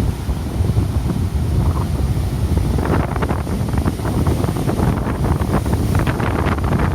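Strong wind buffeting the microphone in a steady low rumble, over heavy surf. About three seconds in, a breaking wave adds a crackling, hissing wash of water.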